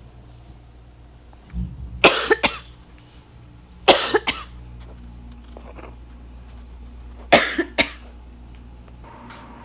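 A person coughing in short, sharp bouts: a cough with a quick follow-up about two seconds in, another about four seconds in, two close together about seven and a half seconds in, and fainter ones between. A low thump comes just before the first cough.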